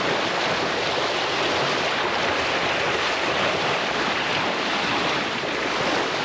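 Steady rushing and splashing of the bow wave along the hull of a JPK 39 FC sailboat sailing fast under spinnaker.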